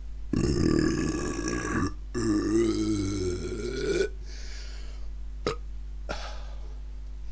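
Two long burps in quick succession, the second wobbling in pitch as it goes.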